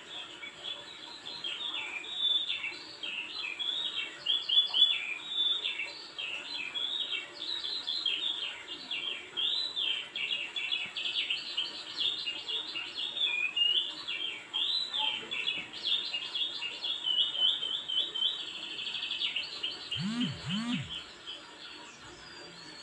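A small songbird singing without a break: rapid high chirps and warbling phrases, with a fast trill near the end. Two short low sounds come about twenty seconds in.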